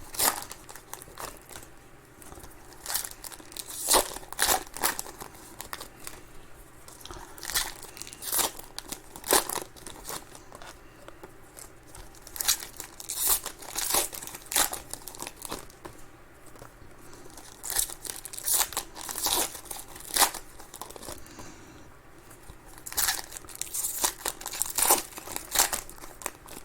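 Trading-card pack wrappers being torn open and crinkled, with cards handled in between: irregular sharp crinkles and snaps throughout.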